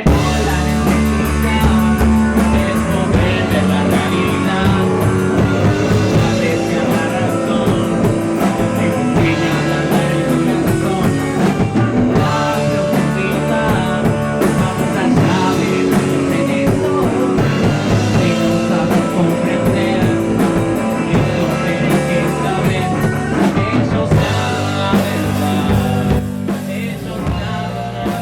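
Rock band playing a song with drum kit and guitar, heard as the studio's room sound rather than a mixed recording.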